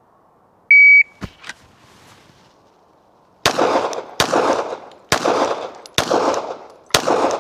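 A shot timer's start beep, one steady high tone about a second in. After a couple of clicks, a 9mm Glock 17 pistol fires five shots, the first about two and a half seconds after the beep and the rest roughly 0.7 to 0.9 seconds apart, each shot echoing.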